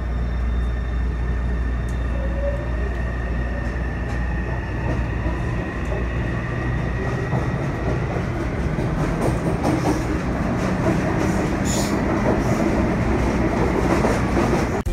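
Taipei metro train pulling out of a station, heard from inside the car: a steady low rumble with a motor whine that rises in pitch as the train gathers speed.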